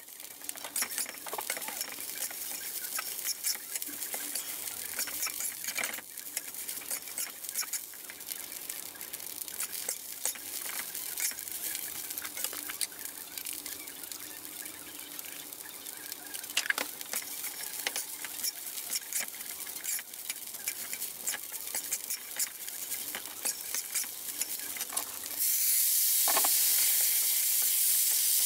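Glutinous rice and Chinese sausage sizzling in a wok while a metal spatula scrapes and tosses it, with frequent clicks and scrapes of the spatula on the pan. Near the end the sizzle jumps to a louder, steady hiss.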